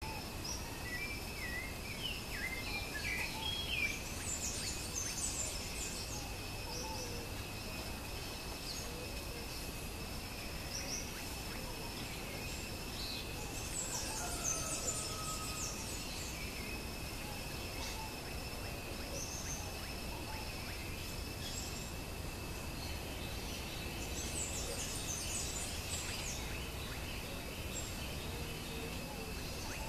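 Natural ambience: a steady high-pitched whine throughout, birds chirping briefly in the first few seconds, and a burst of high scratchy chatter about every ten seconds over a low background rumble.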